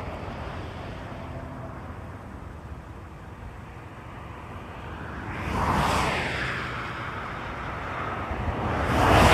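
Highway traffic: a steady rush of road noise with two vehicles passing close by. The first swells and falls away about five and a half seconds in; the second, louder, builds near the end.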